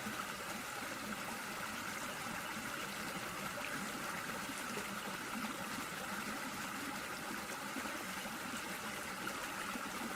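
Steady, even rushing noise, like running water, with no distinct events.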